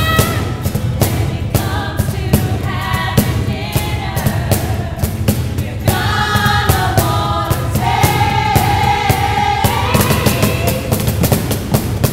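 A stage ensemble singing a show tune to the steady beat of a cajón. One voice holds a long note about eight seconds in while the drum keeps going.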